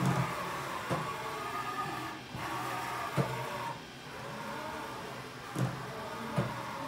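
Haas VF-4SS CNC vertical mill's axis servo drives whining as the axes traverse, each move rising and then falling in pitch, with a few sharp clicks between the moves.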